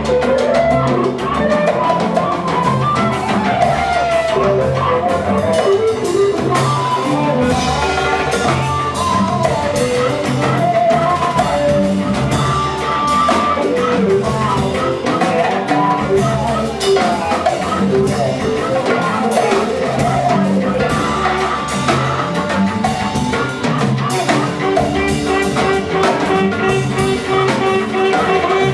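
Live psychedelic dub-jazz band with a Moroccan trance feel, playing a steady groove: upright bass, drum kit and a horn line that winds up and down over the rhythm.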